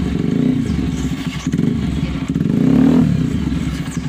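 TVS Apache RTR 160 4V's single-cylinder engine running through an aftermarket performance exhaust, its note swelling and dropping back about three quarters of the way in.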